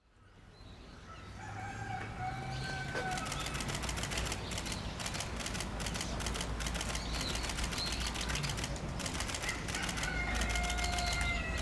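Giant panda scratching with its claws, a fast rasping clatter, and calling with high, drawn-out cries near the start and again near the end.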